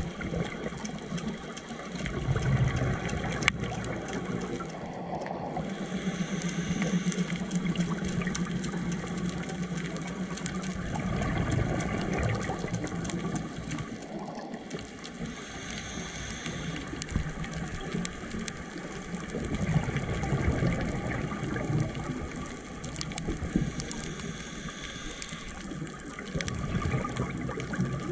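Scuba diver breathing through a regulator underwater: a short hiss on each inhale and a longer bubbling rumble on each exhale, in slow cycles about every eight to ten seconds.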